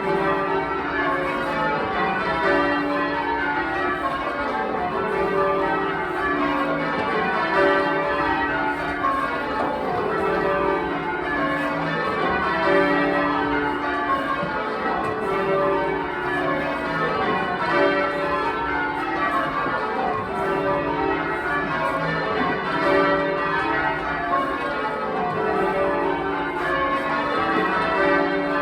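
A ring of twelve full-circle church bells ringing rounds. Each row steps down the scale from treble to tenor, and the rows repeat at an even pace.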